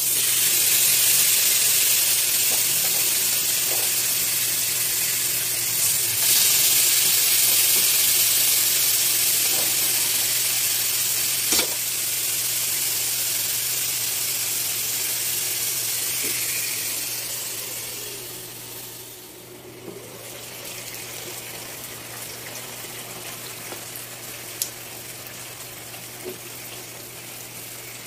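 Chicken leg quarters sizzling on a hot ridged grill pan: a loud frying hiss that starts suddenly as the meat goes in, then runs quieter after about 19 s. A few sharp clicks of metal tongs against the pan.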